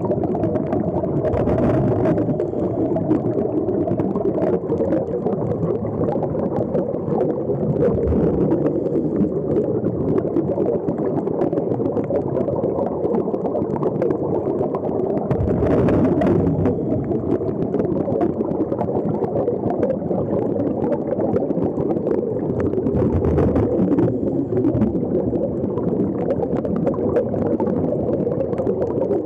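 Steady muffled underwater rumble and gurgle of air bubbling from air-fed sea-walk diving helmets, recorded underwater, with faint crackles and a brief louder surge about halfway through.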